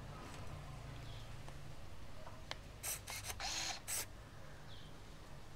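Olympus IZM300 compact film camera's built-in motor whirring in a few short bursts about three seconds in, with small handling clicks around it.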